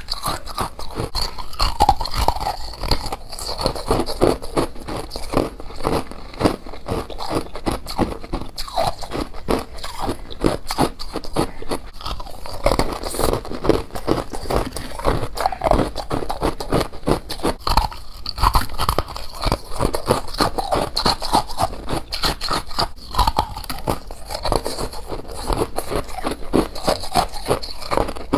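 Close-up biting and chewing of colored humidifier frost: a continuous run of crisp crunches and crackles.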